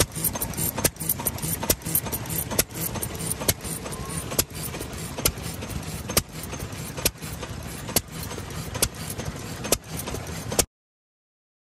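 Yoshida Y-type 2-horsepower kerosene stationary engine running, with a sharp exhaust bang a little under once a second, evenly spaced, over a steady low chuffing. The sound cuts off suddenly near the end.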